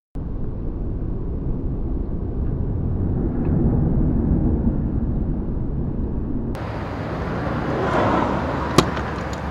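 Outdoor street ambience: a steady low rumble of traffic-like noise. About two-thirds of the way through it changes abruptly to a brighter hiss, and there is a single sharp click near the end.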